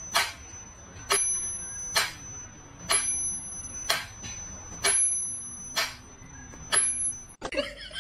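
Mechanical pyramid metronome ticking steadily, a little under once a second, each tick with a thin high ringing tone behind it. The ticking cuts off abruptly near the end.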